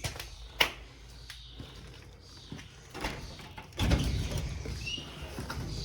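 A sharp knock about half a second in, then a louder low rumbling scrape lasting about a second, starting near four seconds in.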